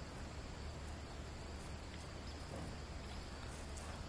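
Steady outdoor background noise: an even hiss over a constant low hum, with no distinct event standing out.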